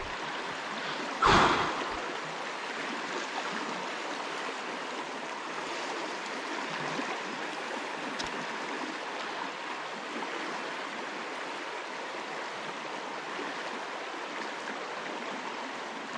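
River current rushing steadily through a shallow riffle. A brief, louder burst of noise comes about a second in.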